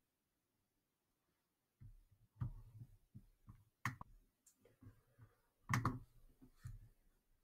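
Dead silence for about two seconds, then a series of faint, irregular clicks and soft knocks from operating the computer, the loudest about four and six seconds in.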